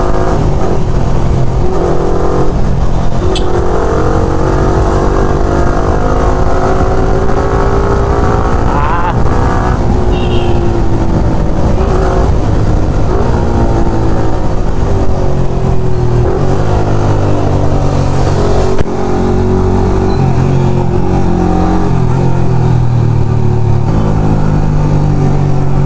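Yamaha R15M's single-cylinder engine through an aftermarket Akrapovic exhaust while riding, its pitch rising and falling repeatedly as the bike accelerates and eases off.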